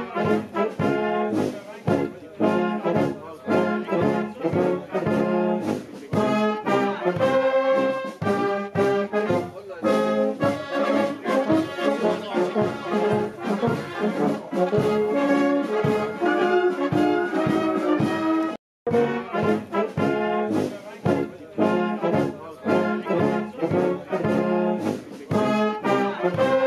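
Brass band playing, a melody carried by horns and trombones over a steady beat. The music drops out completely for a moment a little past halfway, then carries on.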